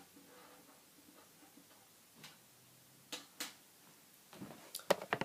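Light plastic clicks of K'nex pieces being handled as rounds are loaded into a K'nex rifle's magazine: a few scattered clicks, then a quick run of clicks near the end.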